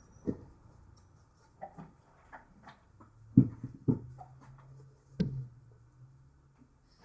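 Scattered clicks and knocks of small parts and tools being handled and set down on a workbench during soldering, the loudest a few seconds in. A faint steady low hum comes in about halfway through.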